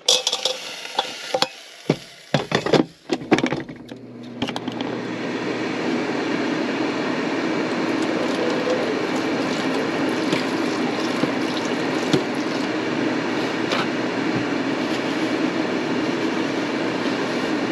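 Clicks and knocks as an air fryer's basket is put in and the fryer is set, then about four seconds in the air fryer starts and its fan runs with a steady rushing hum.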